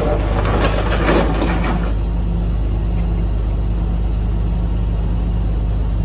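A vehicle engine running steadily, a constant low hum, with a brief rushing noise over it in the first two seconds.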